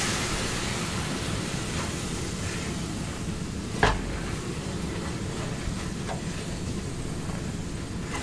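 Onion soup sizzling in a stainless steel sauté pan as a wooden spatula stirs and scrapes through it while it reduces and thickens. One sharp knock a little under four seconds in.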